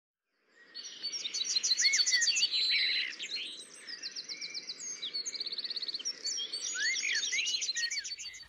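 Several songbirds chirping and singing at once, a busy mix of fast trills and short rising and falling whistles, fading in at the start.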